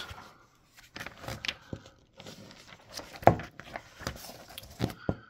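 Paper pages of an instruction booklet being turned and handled by fingers: soft rustling with short crisp snaps of paper, the sharpest about three seconds in.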